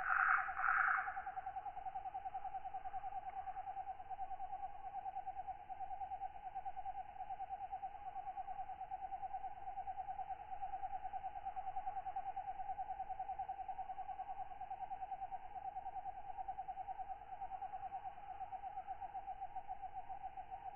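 Katydids in a tropical night ambience: a steady, rapidly pulsing trill holds at one pitch throughout, with a brief louder burst of rhythmic, higher chirps in the first second.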